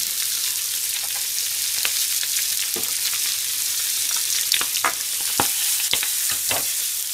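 Chicken livers and onions sizzling steadily in a frying pan, with scattered sharp clicks of a metal spoon against a small glass jar, more of them in the second half.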